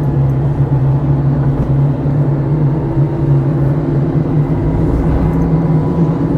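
Steady wind roar with a low droning hum from a Suzuki Jimny's unfaired roof rack crossbars at speed, heard from inside the cabin. The hum is the rack vibrating in the airflow, which sets in above about 50 km/h.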